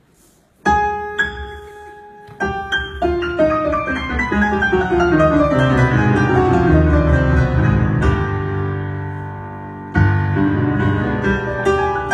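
Piano playing a solo passage: two struck chords, then a long cascade of notes falling in pitch that settles into a held chord, and a fresh loud chord about ten seconds in.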